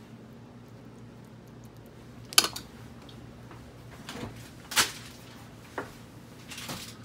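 A metal spoon clinks against a ceramic bowl as it is laid down, a sharp click about two and a half seconds in, followed by a few softer kitchen knocks over a faint steady hum.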